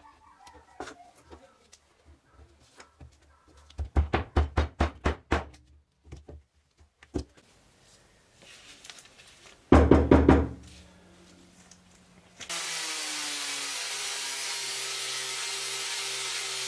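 An angle grinder with a sanding disc cuts in suddenly about three-quarters of the way in and runs steadily, sanding the wooden handle scales of an old meat cleaver. Before it come a quick run of about eight loud knocks and a brief rustle of paper.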